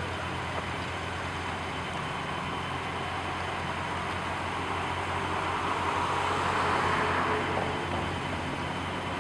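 An engine idling steadily, with a rushing noise that swells for a couple of seconds about six seconds in.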